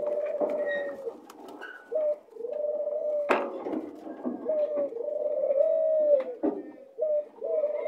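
White doves cooing: long, low calls that follow one another with short gaps, with a sharp clap about three seconds in.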